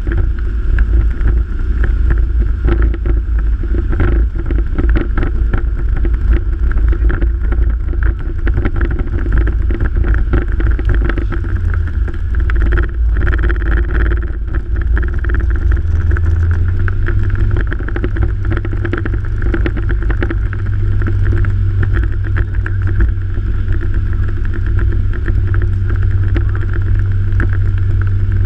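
A motor running steadily, with a heavy low rumble of wind buffeting the microphone.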